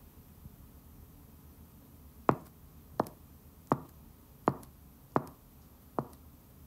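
Footsteps at a steady walking pace: about six sharp, evenly spaced steps, starting about two seconds in.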